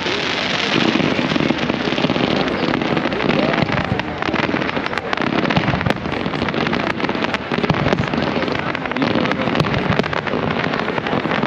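Many sharp, irregular cracks and pops over a crowd's voices.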